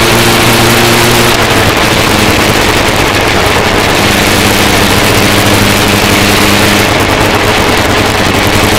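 Motorcycle engine running at a steady cruise under heavy wind and road rush on a bike-mounted camera's microphone. The engine note shifts a little a couple of times.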